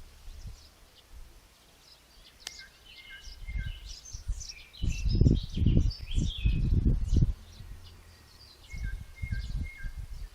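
Outdoor ambience of several songbirds chirping and calling, including a short repeated note phrase twice. Irregular low rumbling bursts come and go and are loudest in the middle.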